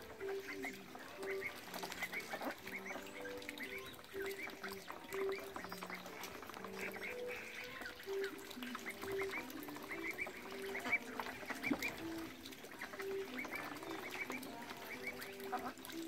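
A flock of domestic ducks calling with many short, low quacks, mixed with light splashing as they dabble in a tub of water.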